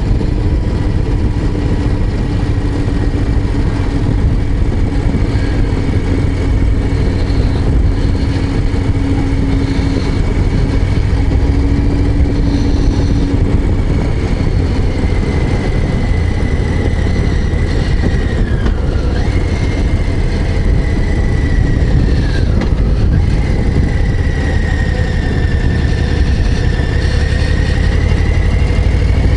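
Harley-Davidson Low Rider ST's Milwaukee-Eight 117 V-twin engine running steadily while riding, a deep, even rumble. A thin whistle that wavers in pitch joins about halfway through.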